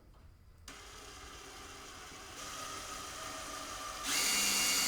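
Power drill with an 1/8-inch bit starting up about a second in and running steadily, boring out a screw hole to enlarge it; the whine gets louder in two steps, near the middle and near the end.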